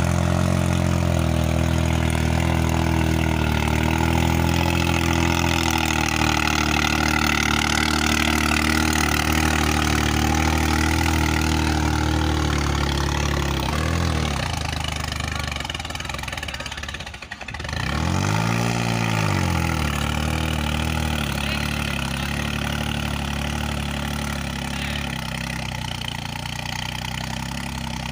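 New Holland 3600-2 tractor's three-cylinder diesel engine running steadily under load while it pulls a seven-tine cultivator through dry soil. A little over halfway through the sound dips briefly, then the engine note rises and falls once.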